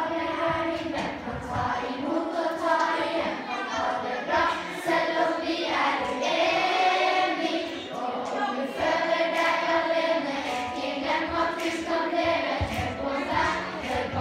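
A large group of children singing a song together as a choir, with held notes and a steady flow of sung lines.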